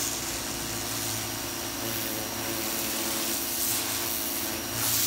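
AR Blue Clean AR383 electric pressure washer running: a steady hiss of the water jet spraying the underside of a roof eave, over the low, even hum of the washer's motor and pump.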